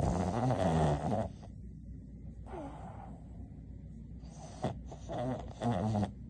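Boston terrier snoring and snorting in her sleep, the wavering, pitched noise of a short-nosed dog's breathing. A long snore fills the first second, a short one follows near the middle, and three quick snorts come close together near the end.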